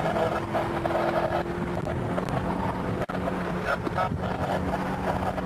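Car engine heard from inside the cabin, with the revs dropping just at the start and then holding steady through a bend, over wind and road noise. A brief click or dropout comes about three seconds in.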